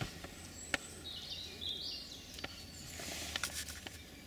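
Quiet woodland ambience: a bird chirps briefly about a second in, and a few sharp isolated clicks sound through it.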